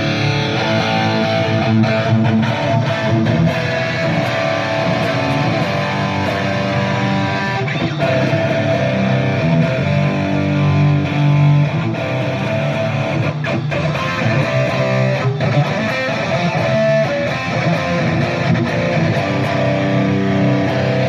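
Live band music led by an electric guitar over bass, playing continuously during a sound check.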